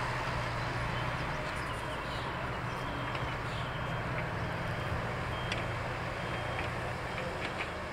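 Boeing 777-300ER's GE90 turbofans at takeoff thrust as the jet lifts off and climbs away: a steady, deep roar that slowly fades as it recedes.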